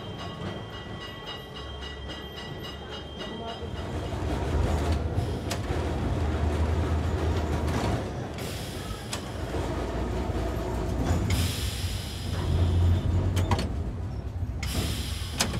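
Kolkata electric tram running, heard from inside the car: a low rumble of wheels on rail that grows louder after about four seconds, with a few sharp clacks and several short bursts of hiss.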